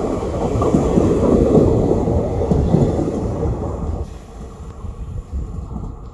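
ICF passenger coaches rolling past close by, their wheels rumbling and knocking over the rails. About four seconds in the last coach passes and the sound drops suddenly to a fainter rumble as the train moves away.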